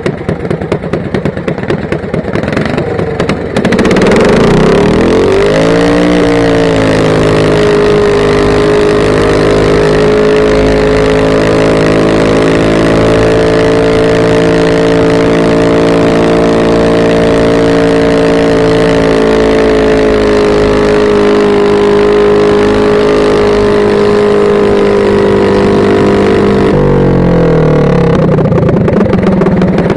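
Small garden pulling tractor's engine, heard through its straight upright exhaust stack. It idles, then revs up about four seconds in and holds a high, steady full-throttle note for some twenty seconds while pulling down the track. Near the end the throttle is cut and the revs drop back toward idle.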